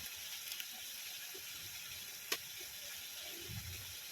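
Chicken curry frying in a pan: a steady, faint sizzling hiss, with one sharp tap of a spoon about two seconds in.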